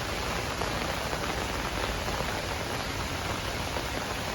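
Heavy rain pouring down steadily: an even hiss of many drops, with faint scattered patters.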